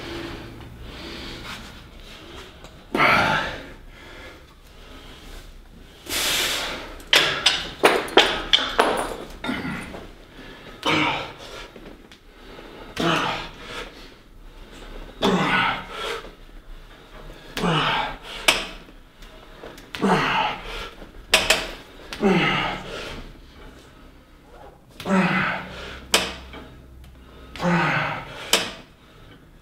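A man's forceful, voiced exhalations, one with each repetition of a cable set, about one every two to two and a half seconds, each falling in pitch. A quick cluster of sharp clicks comes about seven to nine seconds in.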